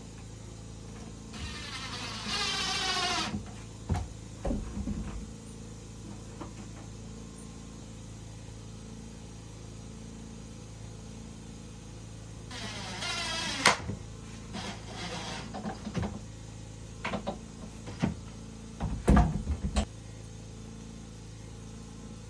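A small electric motor whines in two bursts of about two seconds each, its pitch falling as it works, followed by scattered knocks and clatter.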